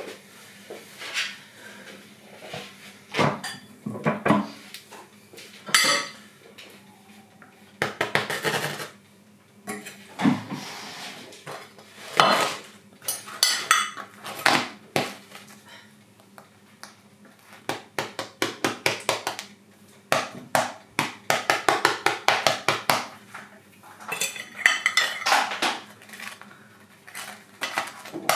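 A fork and a china plate clinking and scraping in a string of separate knocks and clicks, with several quick runs of rapid ticks.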